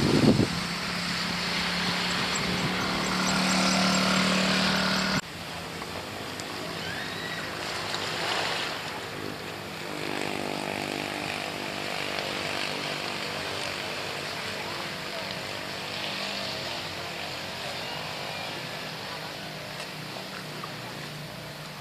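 An engine running steadily with an even hum. It drops sharply in level about five seconds in and carries on quieter.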